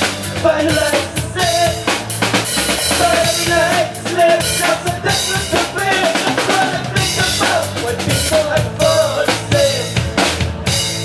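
An alternative rock band playing, with a drum kit beating out a dense, steady rhythm on snare and bass drum under a wavering melody line; the music cuts off at the end.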